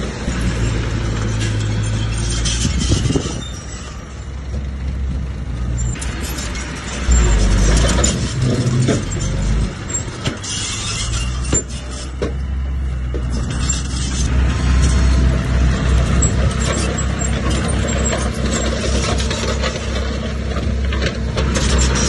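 Diesel engines of a small crawler bulldozer and a mini dump truck running steadily, rising and falling in level, with scattered short clatters.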